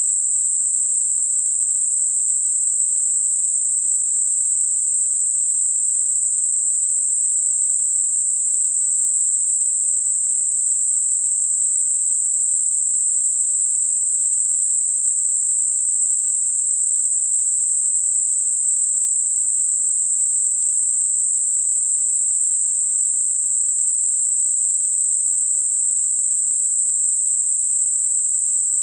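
Synthesized Gaussian narrow-band noise centred at 8 kHz, a steady high-pitched hiss that holds the same level throughout: a tinnitus masking sound.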